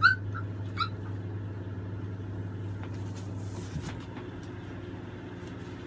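Steady hum of a window air-conditioner unit, with two short high-pitched squeaks from an American bully puppy in the first second.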